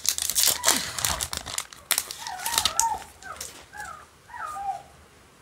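A foil trading-card booster pack crinkling and tearing open, then, near the middle, several short swooping bird calls.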